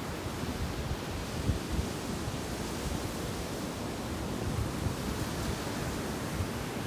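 Sea surf washing onto a beach, a steady rushing wash, with low gusts of wind buffeting the microphone.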